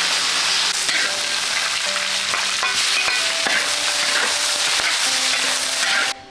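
Twice-cooked pork with bamboo shoots sizzling loudly as it is stir-fried in a wok, the spatula stirring it. The sizzle cuts off abruptly near the end.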